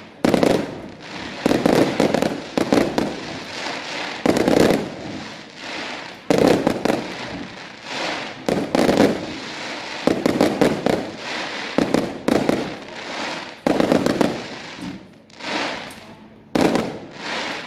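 Aerial fireworks shells bursting in quick succession: a string of sharp bangs, each ringing on briefly, with several a second at times and smaller pops in between.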